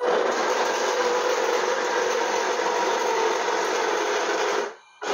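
A 3D-printed 1/9-scale RC M1A2 Abrams tank's upgraded drive system running: the electric drive motors whir and the tracks rattle on a wooden floor as the tank turns in place. The sound cuts out briefly near the end, then starts again.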